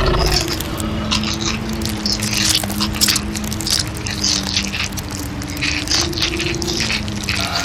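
Creepy Halloween sound-effect soundscape: a low sustained drone of two steady tones, overlaid with scattered skittering, scratching clicks.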